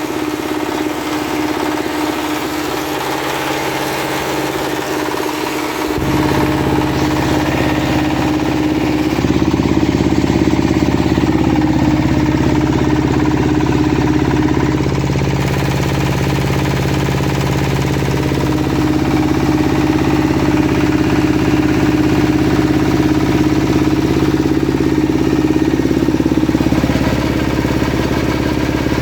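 Livestock feed-processing machinery (mixer, chopper and pellet mill set) running steadily with an engine-like hum. It gets louder about six seconds in and again about nine seconds in.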